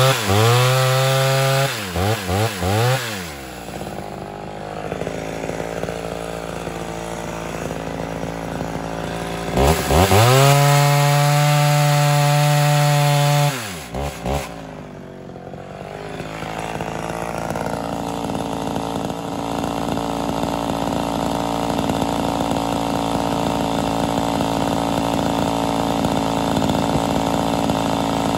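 Ported Homelite Super XL Auto two-stroke chainsaw revving to full throttle and cutting into a log twice, each long cut followed by quick throttle blips. Between the cuts and for the second half it settles to a steady idle.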